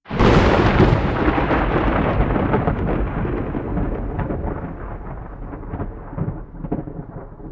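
Thunderclap that starts suddenly out of silence and slowly rumbles away over several seconds, with crackles through the fading tail.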